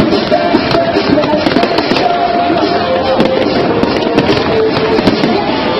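Aerial fireworks bursting in quick succession: many sharp bangs and crackles. Music with long held notes plays underneath.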